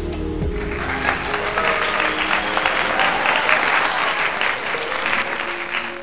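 Background music with applause laid over it, the clapping starting about half a second in.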